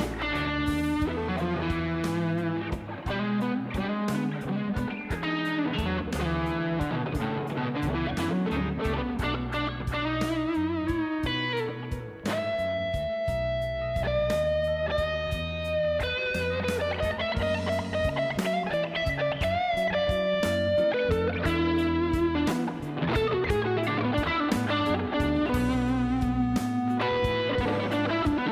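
Electric blues guitar playing an instrumental intro: quick single-note lead lines over steady low notes, with a stretch of long, held, bent notes in the middle.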